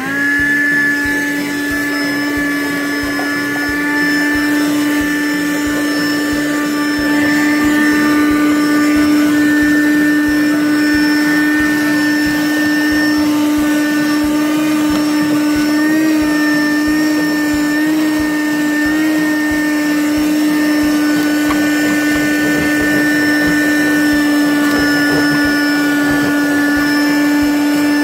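Small handheld wet-and-dry car vacuum switching on and running with a steady motor whine. Its pitch wavers briefly a few times past the middle.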